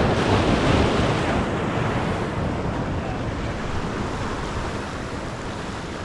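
Pacific Ocean surf breaking and washing up the beach. It swells to its loudest in the first second, then slowly eases off, with wind buffeting the microphone.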